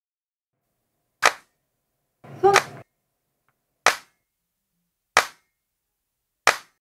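A string of sharp, dry cracks about a second and a quarter apart, four in all. Between the first two comes a short pitched sound like a brief voice.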